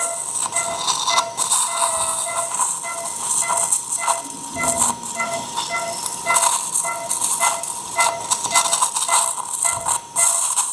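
Electrosurgical generator sounding its activation tone, a steady note with repeating beeps at several pitches about two or three times a second, over a steady hiss with crackling: spray-mode coagulation of the cervical excision bed at high current, with the smoke being suctioned.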